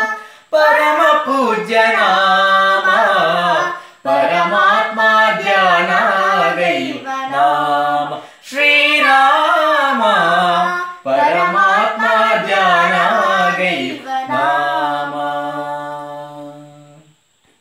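A girl and a man singing a Kannada devotional song to Rama together, unaccompanied, in long drawn-out phrases with short breaths between them. The last phrase fades out near the end.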